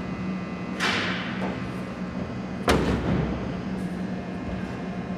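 A sharp knock about two and a half seconds in, with a brief ringing tail, over a steady low hum; a softer swishing hit that fades away comes about a second in.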